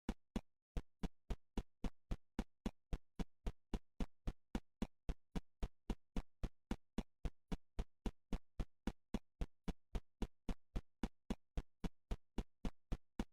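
Steady, evenly paced ticking, about three and a half short ticks a second, with silence between the ticks.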